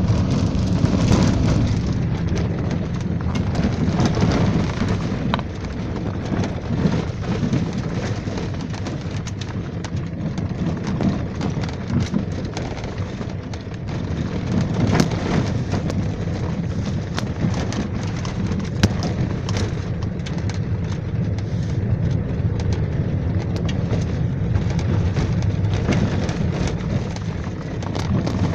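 Wind and road noise inside a moving vehicle: a steady low noise with many small rattles and knocks through it.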